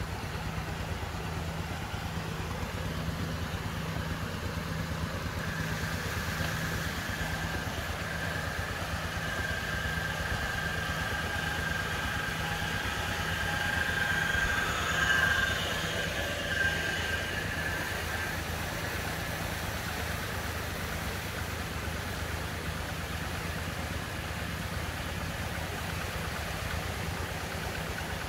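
Steady low hum of a running engine or motor. A high whine rises over it about six seconds in, is loudest around the middle and fades out a few seconds later.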